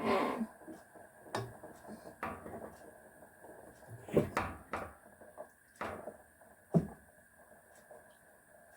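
Kitchen clatter: a spoon knocking against a soup pot about eight times at irregular intervals, the loudest knock near the end.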